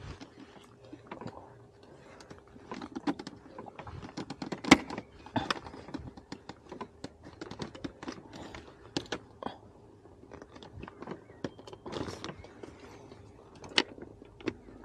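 Plastic engine-bay covers and clips being worked loose and lifted by hand: irregular clicks, taps and knocks, the sharpest about five seconds in, over a faint steady hum.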